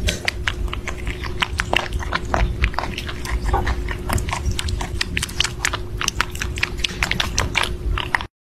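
Two kittens lapping milk from a metal bowl: many quick, irregular wet clicks of their tongues over a steady low hum. The sound stops abruptly near the end.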